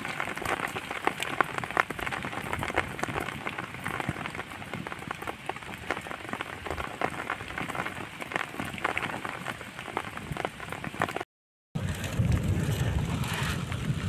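Rain falling steadily, with many separate drops ticking on a surface. The sound cuts out briefly about eleven seconds in and comes back with a low rumble added.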